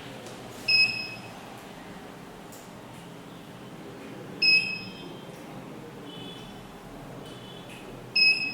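ATSS Active 207 burglar alarm panel beeping while zone 1 counts down its arming time delay: three short, high beeps about four seconds apart, with fainter shorter beeps between the last two.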